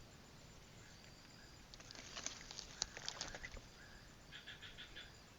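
Faint outdoor ambience with scattered sharp clicks and rustles through the middle, and a quick run of about five high chirps near the end.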